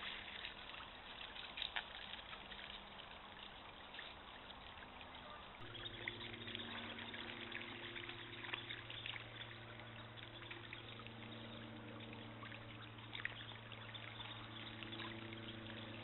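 Shallow stream trickling over stones. From about six seconds in, a low steady hum joins it.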